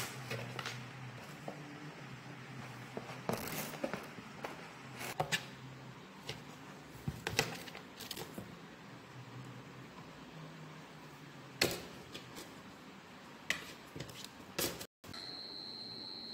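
Scattered scratches, taps and rustles of a kitten playing in a cardboard box, over a low steady hum. After a break near the end, a steady high-pitched whine.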